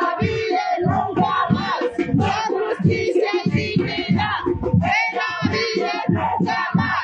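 Music with singing voices, a song going on without a break.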